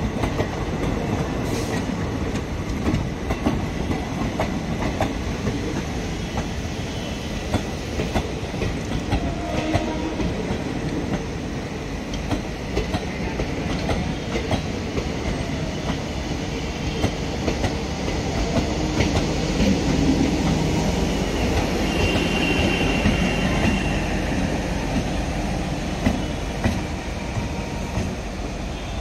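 Passenger train coaches rolling past close by: a steady rumble with the wheels clattering over the rail joints in a running clickety-clack.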